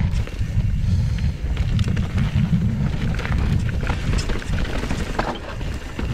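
Mountain bike riding down a rocky trail: wind rumbles on the microphone, with scattered clicks, knocks and rattles from the bike over the rocks.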